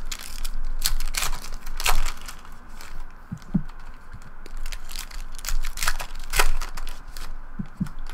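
Trading cards being handled and dropped onto a pile on a tabletop: an irregular run of sharp card-stock clicks and slaps, with a few duller knocks.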